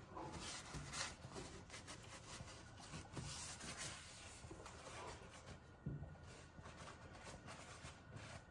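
Faint rubbing and scratching of a cloth towel wiping spilled milk off a stainless-steel gas stove top, strongest in the first few seconds, with a light knock about six seconds in.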